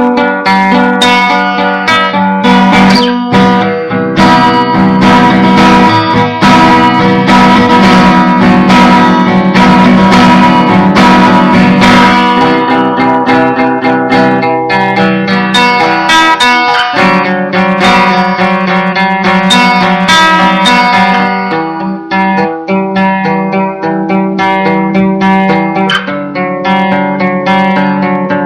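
Acoustic guitar improvisation, strummed and picked, recorded loud with poor sound quality; the playing thins out a little about two-thirds of the way through.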